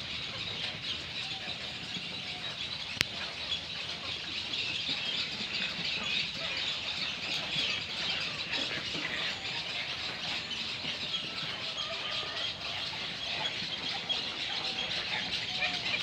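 A nesting colony of white egrets calling from the trees: a dense, unbroken chatter of many overlapping high squeaks and squawks. A single sharp click about three seconds in.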